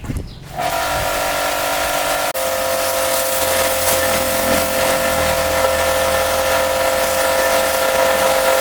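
A motorised cleaning machine switches on about half a second in and runs steadily. Its motor gives a whine of several tones over a low hum, under a strong hiss of air or water.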